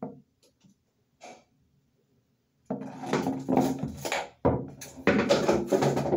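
A man's loud, wordless vocal sounds, starting about two and a half seconds in after a near-silent pause.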